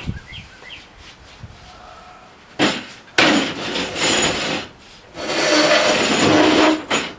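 Packaging on the sawmill parts being handled: loud rough scraping and rubbing in three long bursts, with a short one near the end.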